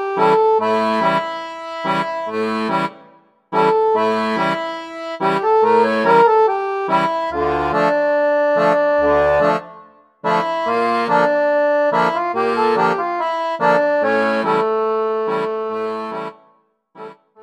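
Instrumental background music with a bouncy, even rhythm of chords over a bass line. It breaks off briefly twice and fades out near the end.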